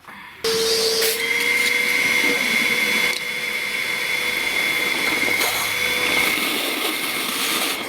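Ozito Power X-Change 18V cordless wet/dry shop vacuum switching on about half a second in, then running steadily with a high motor whine as it sucks up water from a bucket.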